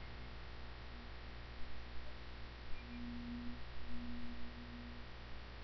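Steady mains hum and hiss from the recording microphone, with a faint low tone heard twice near the middle.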